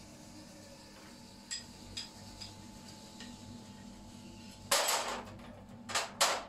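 Iron tools and metal pieces clinking and clattering as they are handled: a few light clinks, then a louder clatter about five seconds in and two short clanks near the end.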